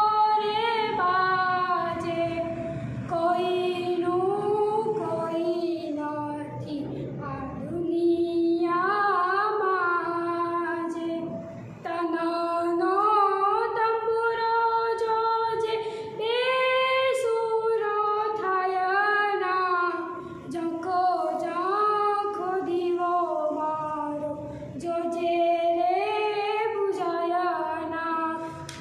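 A teenage girl singing solo and unaccompanied, a melody of long held notes with many glides between them.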